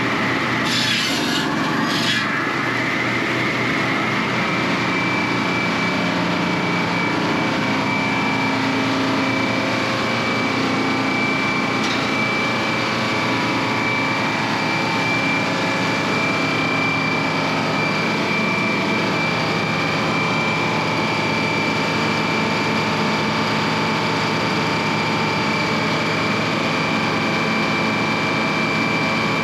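Engine-driven sawmill cutting through an oak log: the engine runs steadily under load, with a steady high whine over it. There are two short hisses about one and two seconds in.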